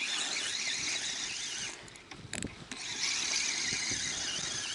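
Spinning reel being cranked on a feeder rod, its gears giving a high wavering whine as line is wound in after a bite. The winding stops for about a second with a few clicks, then starts again.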